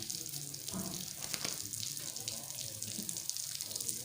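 Water running and splashing steadily as pigeons are showered for a bath.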